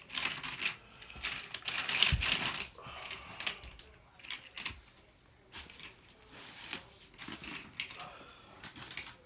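Irregular clicking and rattling of plastic toy train track and trains being handled, with a thump about two seconds in.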